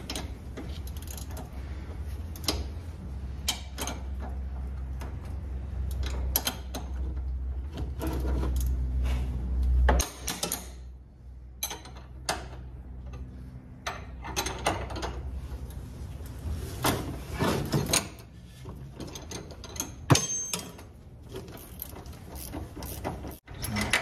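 Ratchet wrench clicking in irregular runs as a seat-belt mounting bolt is worked loose, with knocks of metal tools. A low rumble sits under the first ten seconds and cuts off suddenly.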